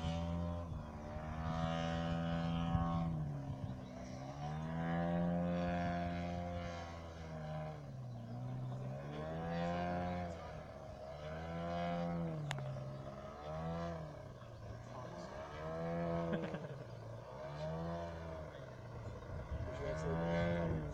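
Engine of a large-scale radio-controlled aerobatic model plane in flight, its pitch rising and falling in repeated swoops about every two seconds as it manoeuvres and passes overhead.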